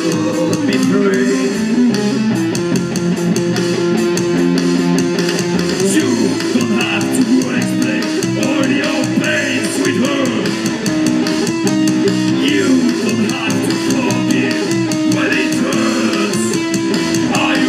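Live rock band playing: electric guitars and bass guitar over drums, loud and continuous.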